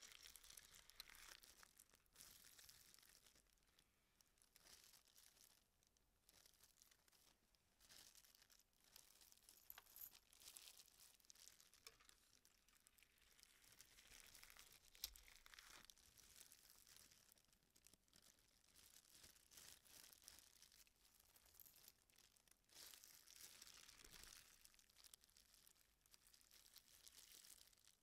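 Faint, irregular crinkling of a thin disposable plastic glove as the gloved hand moves in and around the bath of an ultrasonic cleaner, coming and going in waves, with one sharper tick about fifteen seconds in.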